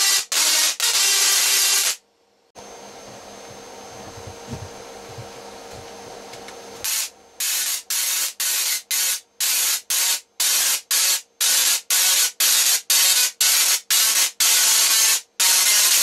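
Small solid-state Tesla coil with a full-bridge IGBT driver arcing with a loud harsh buzz. It cuts out about 2 s in, leaving only a faint hum. It comes back about 7 s in, stuttering in quick bursts two or three times a second before running almost steadily.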